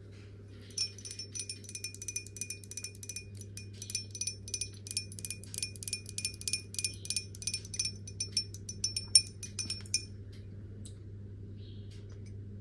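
Rapid clinking of a spoon against a ringing dish, several strikes a second, each ringing at the same bright pitch, stopping about ten seconds in. A low steady hum runs underneath.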